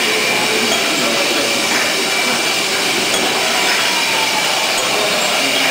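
Whisky bottling line running: a steady mechanical clatter with glass bottles clinking against each other and the conveyor guide rails as they move through the capping machine.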